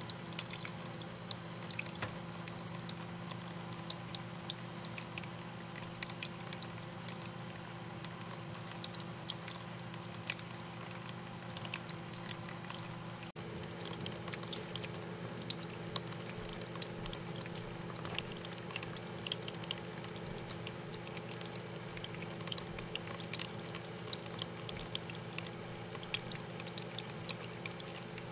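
Small terrarium waterfall trickling and splashing into a shallow pool, with many small drip ticks over a steady low hum.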